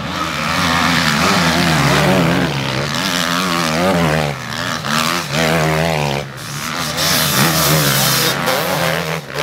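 Several motocross bikes passing one after another through a sand corner, their engines revving up and down as the riders get on and off the throttle. The last bike passes close by near the end.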